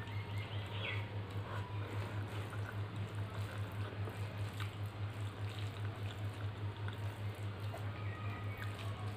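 Close-up wet eating sounds: rice and dal squished and mixed by hand, chewing and lip smacks, heard as scattered faint clicks and squelches. Under them runs a steady low hum that pulses two or three times a second and is the loudest sound throughout.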